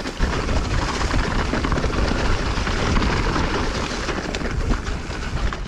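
Mountain bike descending singletrack at speed: steady wind buffeting the microphone, with the tyres rolling over loose loam and the bike rattling over small bumps.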